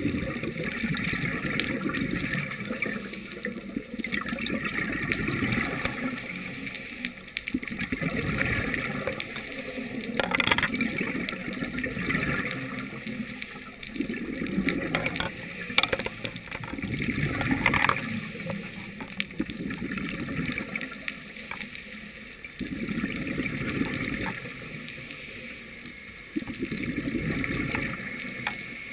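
Scuba diver's regulator breathing heard underwater through the camera housing: exhaled bubbles gurgling up in bursts about every three to four seconds over a steady watery hiss.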